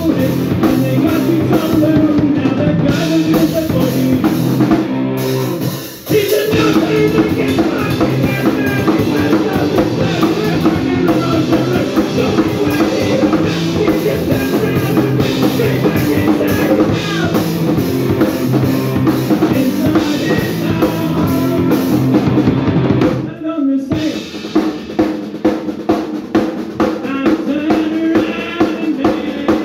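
Live punk band playing an instrumental passage on electric guitars, bass guitar, accordion and drum kit. The band drops out almost completely for a moment about two-thirds of the way through, then comes back in with the drums to the fore.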